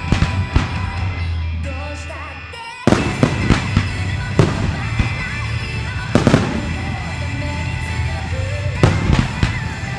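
Fireworks shells bursting at irregular intervals, several sharp bangs, over music playing with the display, which grows louder a little under three seconds in.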